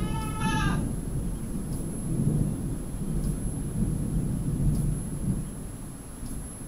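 Thunder rolling: a low, continuous rumble that swells and fades, easing off near the end. In the first second a short, pitched animal call sounds over it.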